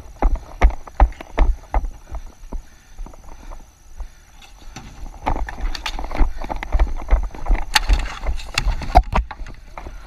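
Running strides on a plastic dek hockey tile surface, a sharp clack about two and a half times a second that fades after a couple of seconds. From about five seconds in, a denser, irregular clatter of hockey sticks and ball on the tiles, loudest near the end.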